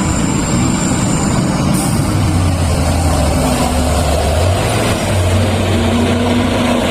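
Large mining haul truck's diesel engine running as the truck drives past, a deep steady drone.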